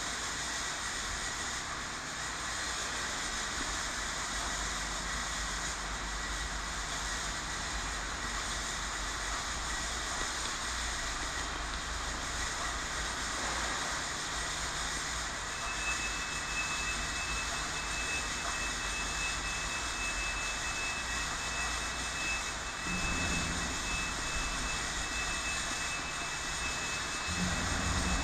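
Steady machine-like background hiss with a faint high whine; a second, slightly higher whine joins about halfway through.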